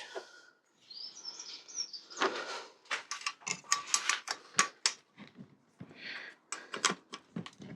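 Spanner working a 10 mm bolt on a bicycle fitting: a run of quick metallic clicks and scrapes as the tool slips and turns on the bolt, which is spinning freely rather than undoing.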